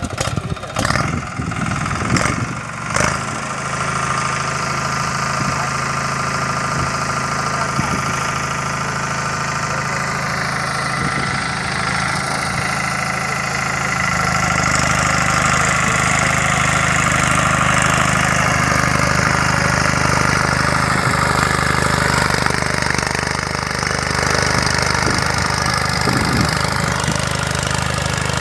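Diesel engine of a Captain compact tractor running steadily under load while pulling a reversible mould-board plough through soil, getting louder from about halfway. A few knocks in the first three seconds.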